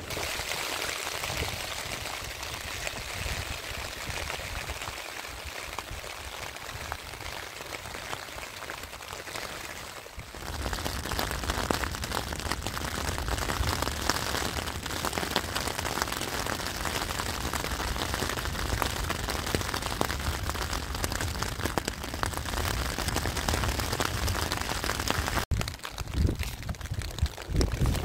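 Rain pattering on a Vango Starav 200 tent's flysheet, heard from inside the tent, a dense, even patter that gets louder from about ten seconds in.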